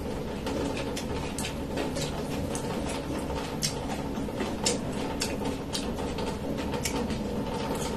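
A thin plastic bag crinkling, with scattered small irregular clicks, as cold dishes are picked out of it with chopsticks and eaten, over a steady background hum.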